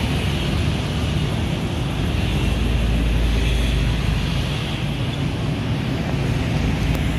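Steady road traffic passing close by, with wind rumbling on the microphone, swelling a little around the middle.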